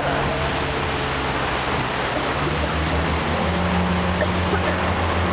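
Motorboat engine running at speed, its note climbing a little about three seconds in, under a steady rush of wind and water spray from the wake.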